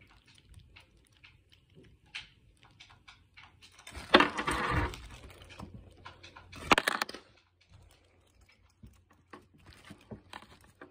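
Packaging and a small part being handled close to the microphone: scattered light clicks and rustles, with a louder rough rustling burst about four seconds in and another shorter one near seven seconds.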